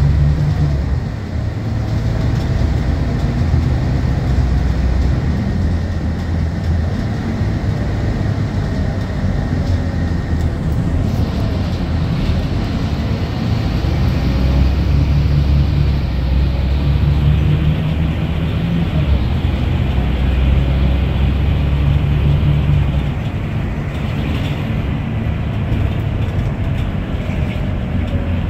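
Scania K230UB bus's rear-mounted five-cylinder diesel engine running under way, heard from inside the passenger cabin with road noise. The engine note rises and falls as the bus drives and eases off about 23 seconds in.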